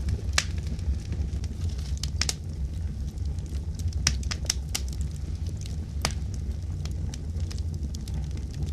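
Wood fire crackling: a steady low rumble with sharp pops and snaps at irregular intervals.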